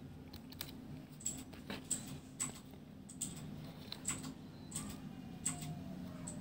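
Light, irregular clicks and taps, about one or two a second, as a cat and a hand shift against a cardboard box, over a low steady hum.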